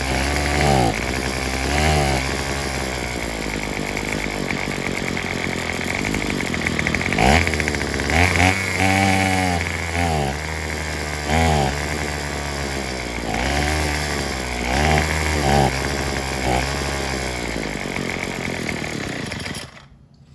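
Craftsman WS210 string trimmer's small two-stroke engine running, its pitch surging up and falling back again and again as the throttle is worked, then cutting off suddenly near the end. With the replacement carburetor it still won't idle and won't run at full throttle.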